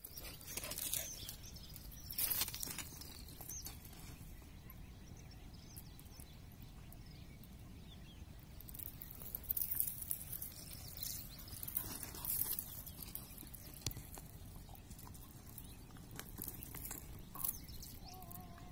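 Footsteps and rustling through dry grass and brush, coming in irregular crackly bursts over a steady low rumble.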